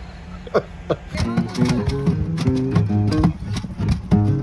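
Acoustic guitar starting about a second in, picking a quick run of single notes.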